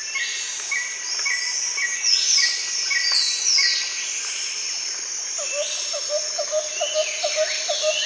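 Chorus of birds and insects: many overlapping chirps and sweeping whistles, with a short high note repeated about every half second in the first few seconds and a lower note repeated about three times a second from about halfway through.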